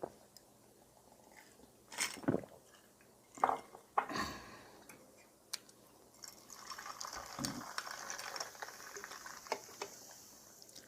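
Eating a bowl of udon in broth: a few short knocks and clinks in the first four seconds, then about four seconds of steady wet, hissing liquid sound, like noodles and broth being slurped.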